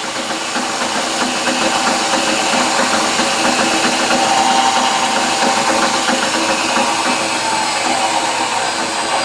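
Drill press running at its highest spindle speed with a homemade magnet demagnetizer spinning in the chuck: a steady motor whir.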